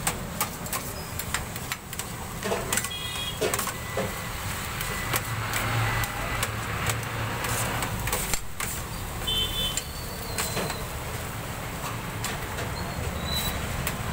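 Steel knife and spatula scraping and clinking against a metal tray as chicken is shaved off a vertical shawarma spit, with a couple of short metallic rings, over a steady low hum.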